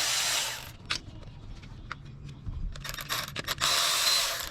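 Metal hand tools and sockets clinking and scraping while a 12 mm socket is fetched. There are two longer scrapes, one at the start and one near the end, with scattered small clicks between.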